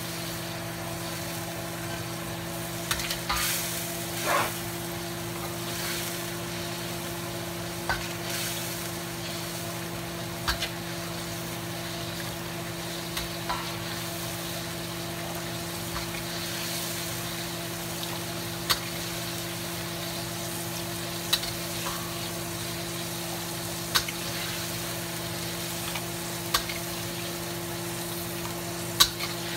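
Cooking liquid sizzling in a hot wok with a steady hiss over a low hum, while a metal ladle scrapes and clinks against the wok every few seconds as the liquid is scooped out.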